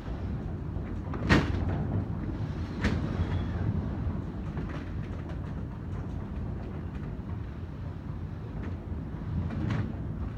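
Typhoon wind rumbling steadily, with three sharp knocks as things bang in the gusts; the first knock, about a second in, is the loudest.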